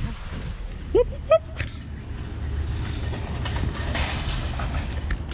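Low steady rumble of a car driving slowly, heard through an open window. About a second in come two short pitched calls, the first rising.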